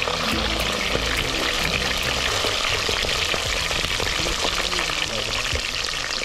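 Whole fish deep-frying in a pot of hot oil, with a steady sizzle and fine crackling of the bubbling oil.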